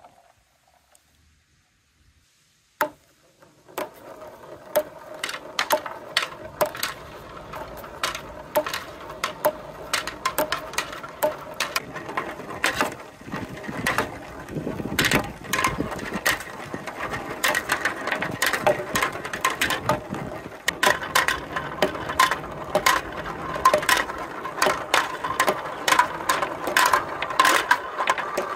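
Many small plastic balls rolling down plastic rain-gutter chutes and around a plastic spiral track, a steady rolling rumble full of quick clicks and knocks as the balls hit each other and the track. It starts with a single click about three seconds in, after near silence.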